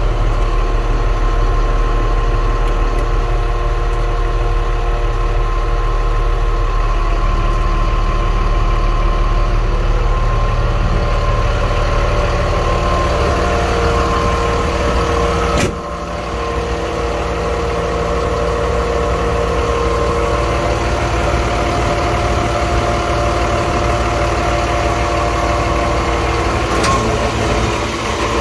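Diesel engine of a jet fuel tanker truck idling steadily, with a single click about halfway through.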